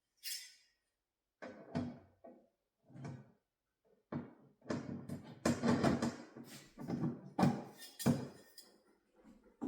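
Handling noises from unpacking a refrigerator: a brief hiss, then an irregular run of knocks, scrapes and rustles that grows busier and louder about halfway through.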